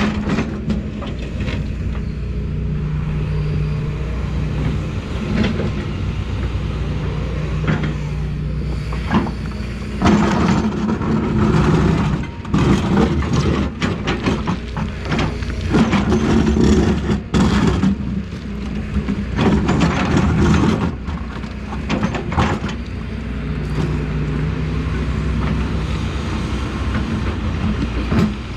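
An excavator digging: its diesel engine runs steadily and rises under load, with scraping and knocking from the bucket and machine working the dirt.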